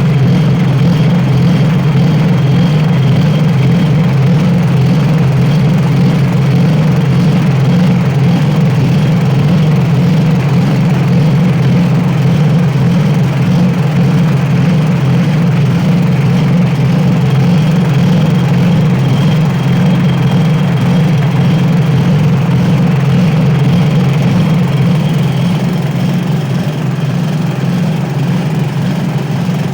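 7 hp single-cylinder petrol engine running steadily at a constant speed, driving a homemade walnut-hulling machine.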